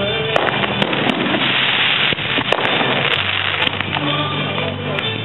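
Fireworks display: a rapid, unbroken barrage of many shells going off in quick succession.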